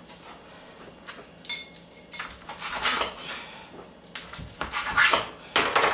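A kitchen knife cutting through soft bread sandwiches on a cutting board. Two sharp clinks come about a second and a half and two seconds in, then rasping sawing strokes of the blade.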